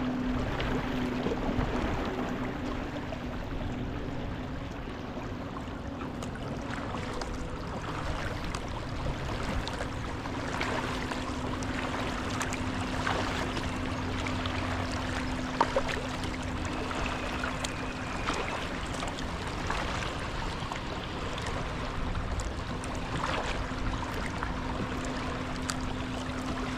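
Water lapping and splashing around a moving kayak, with scattered short splashes of paddle strokes. Under it runs a steady low hum that fades out for several seconds near the start and then returns.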